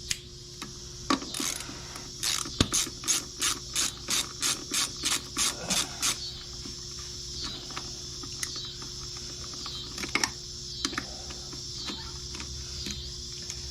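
Socket ratchet clicking in a quick, even run of about three clicks a second for some four seconds, as a brake caliper bolt is turned. A few single clicks and knocks of tool on metal come before and after.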